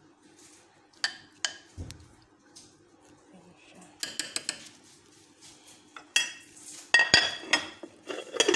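Metal spoon clinking and scraping against a glass bowl while stirring chicken pieces in marinade. A few separate clinks at first, then a busier run of clinks from about four seconds in, thickest near the end, over a faint steady low hum.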